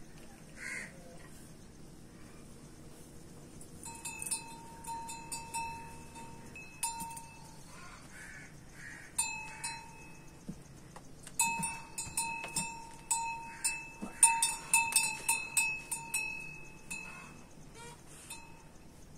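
A small metal livestock bell clanking irregularly. Each strike rings on at the same pitches, in a spell from about four seconds in and a busier, louder one from about eleven to seventeen seconds in.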